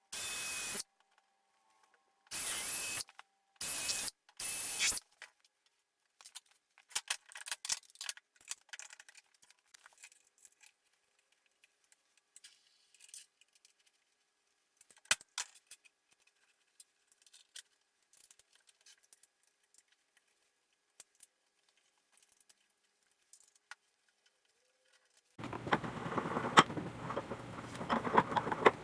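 Four short bursts of a whining power-tool motor, typical of a drill/driver running screws in, followed by scattered clicks and clatter of parts being handled. Near the end there are a few seconds of denser clattering and scraping.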